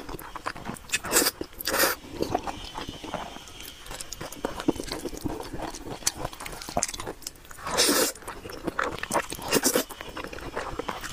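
A person slurping spicy noodles and chewing wetly with many small mouth clicks, with several loud slurps, the longest about eight seconds in.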